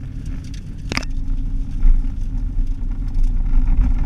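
Car driving along a road, heard from inside the cabin: a steady low rumble of engine and tyre noise with a faint steady hum. A short sharp click sounds about a second in.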